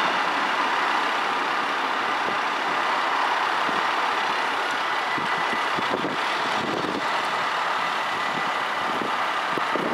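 Steady rushing noise at a Dutch automatic level crossing just after a train has cleared it, with a thin steady high tone. The level eases off slightly as the barriers lift.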